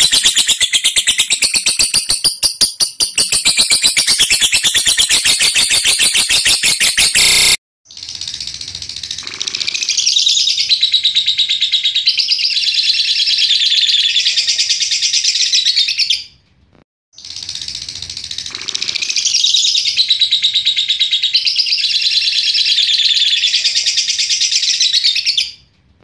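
Lovebird singing its long 'ngekek' song, a rapid, high-pitched, continuous chattering trill. It comes in three long runs: the first cuts off abruptly about a third of the way in, then two more of about eight seconds each follow with a brief pause between them.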